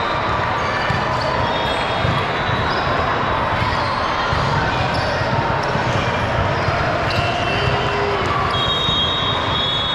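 Basketball game on an indoor court: a ball bouncing on the hardwood with repeated dull thuds, short high squeaks typical of sneakers on the floor, and a steady hum of crowd voices.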